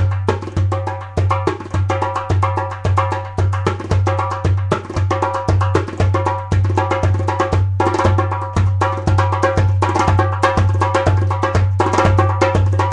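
Solo darbuka (goblet drum) with a dry sound, played by hand: fast rolls of sharp high tek and ka strokes over deep dum strokes that land about twice a second, in a steady rhythm.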